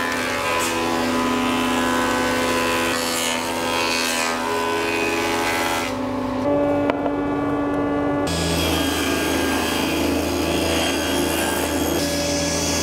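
Thickness sanding machine running as rough boards are fed through it, with a steady grinding rush that drops away for about two seconds past the middle. Background music of held chords plays over it.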